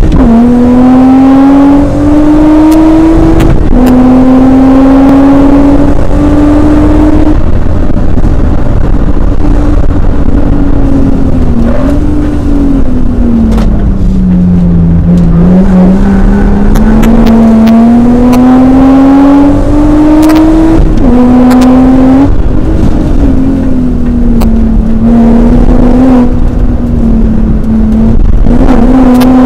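BMW E36's M54B30 straight-six engine at full throttle, heard from inside the cabin, very loud. The engine note climbs in pitch through each gear with short drops at the shifts, sinks slowly as the car slows for a corner around the middle, then climbs again.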